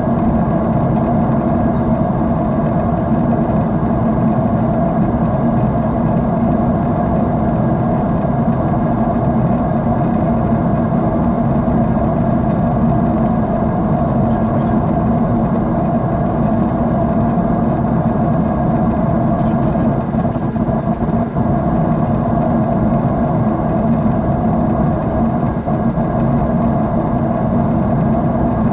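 Steady drone of a jet airliner's engines inside the passenger cabin in flight, an even, unchanging roar heavy in the low end.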